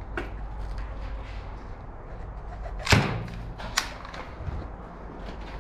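Two sharp impact sounds: a loud knock with a brief low ring about three seconds in, then a shorter, sharper click under a second later, with a few faint ticks around them.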